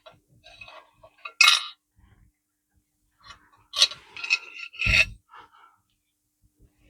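Short clinks and scrapes of a hard drilled tea light stand and its cut-out piece being handled and set down, with a duller knock about five seconds in.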